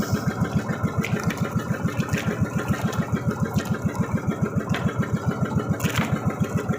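A small fishing boat's engine running steadily, with an even chugging beat of about six or seven pulses a second.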